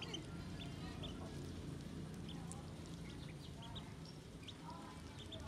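Ducklings peeping: many short, high chirps scattered throughout, with a few lower calls about four and five seconds in, over a steady low hum.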